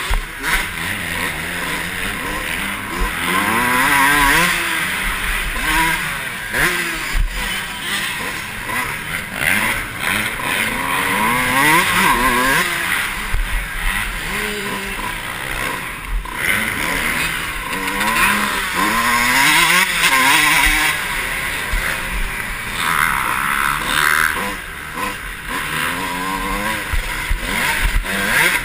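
Dirt bike engine heard from the rider's helmet, revving up and dropping back again and again as it accelerates and shifts through corners and jumps, over a constant rushing noise.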